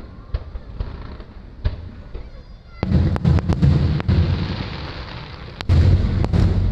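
Aerial fireworks shells bursting: heavy booms with a low rumble about three seconds in and again near the end, with scattered sharp cracks between them.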